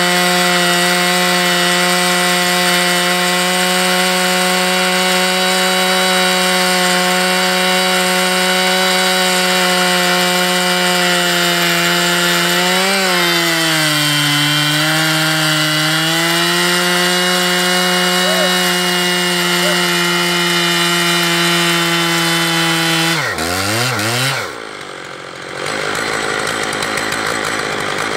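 Stihl 880 two-stroke chainsaw with a 50-inch bar running at full throttle while cutting through a large log, its pitch steady with a brief sag under load about halfway. Near the end the throttle is let off and the engine pitch drops quickly to a lower idle.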